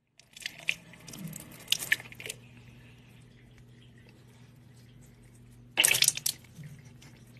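Water dripping and splashing at a kitchen faucet as a cat drinks from it, a quick run of small wet clicks over about two seconds, then a faint steady hum. A short, loud sound stands out about six seconds in.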